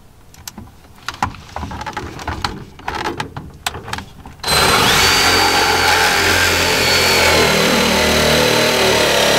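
Light handling clicks and knocks as a screw is set against perforated metal hanger strap, then about halfway through a cordless drill with a screwdriver bit starts abruptly and runs steadily under load with a high whine, driving the screw through the strap.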